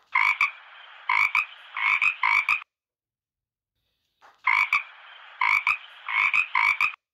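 A frog croaking in two bouts of quick, repeated croaks, with a short pause between them.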